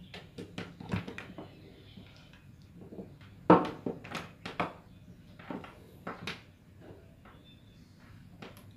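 Handling noise from a USB to IDE/SATA hard-disk adapter cable and its power supply: a string of clicks and knocks as the plastic connectors and the power brick are picked up and set down on a wooden table, the loudest knock about three and a half seconds in.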